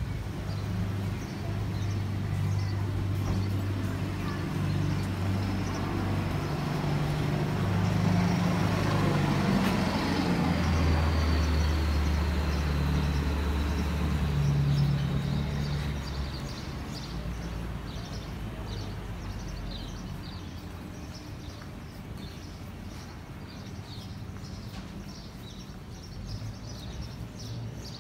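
A motor vehicle's engine with a low, steady hum, growing louder as it passes about a third of the way in and then fading away. Faint, regular high chirping goes on through the second half.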